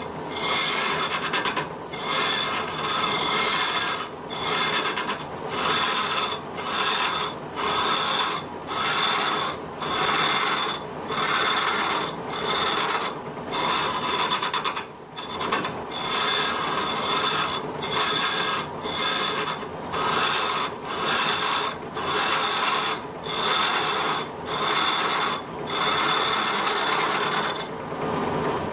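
Lathe turning tool scraping and cutting a spinning block of wood, a steady rasping that breaks off briefly about once a second as the tool is worked along. It stops just before the end.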